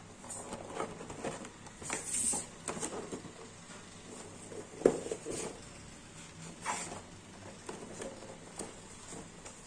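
Cardboard gift box being handled: scraping, rustling and light knocks as it is slid about, opened and turned over, with one sharper knock just before five seconds in.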